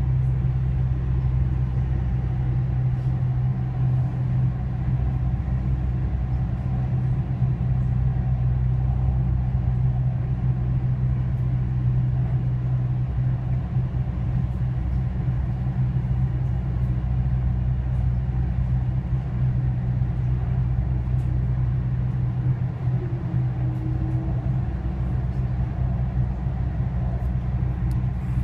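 Steady low rumble of a driverless metro train running at speed, heard from inside the car.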